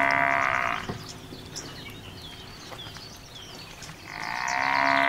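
Bull mooing: one long moo fades out just under a second in, and another begins about four seconds in. Small birds chirp faintly in between.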